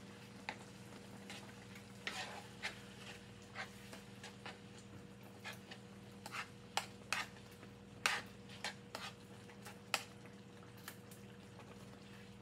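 A kitchen utensil scraping and tapping against a tomato-paste can and a non-stick skillet as the paste is spooned out and stirred in. It comes as a string of sharp, irregular scrapes and clinks, with a steady low hum underneath.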